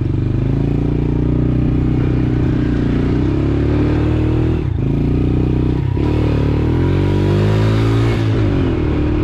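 Honda TRX90 quad's small single-cylinder four-stroke engine running under throttle, its pitch rising and falling. The engine note dips briefly about halfway through and again a second later.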